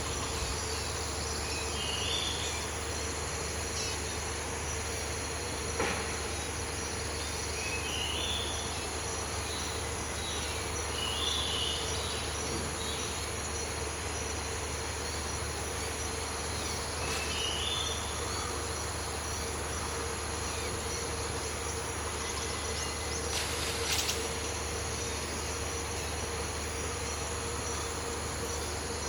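Tropical rainforest insects shrilling steadily in several high, even tones. A few short rising chirps come through now and then, along with a couple of faint knocks.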